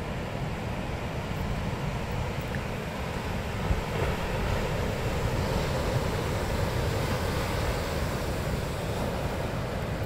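Typhoon-swell surf breaking and washing up a sand beach, a continuous rush of white water, with wind buffeting the microphone in a low, gusty rumble.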